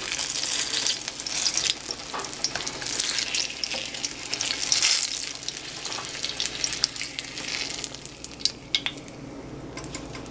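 Green chiles sizzling in hot frying oil in a pan, the sizzle coming in waves as they are moved and lifted out, and easing near the end as the pan empties. A few sharp clicks sound near the end.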